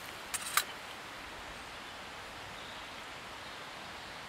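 Steady outdoor background hiss, with a quick cluster of small, sharp clicks about half a second in.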